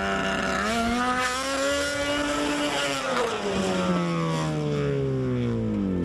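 Snowmobile engine revving up hard about half a second in and holding high, then its pitch falls steadily over the last three seconds, on a run at a snow jump for a backflip attempt.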